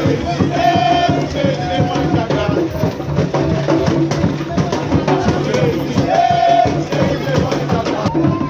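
Jab jab carnival music: drums and percussion struck in a fast, driving rhythm, with voices chanting over it now and then.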